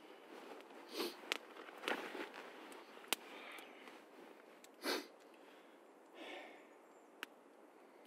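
Small wood campfire crackling, with several sharp single pops a few seconds apart and a few short puffs of noise over a faint steady hiss.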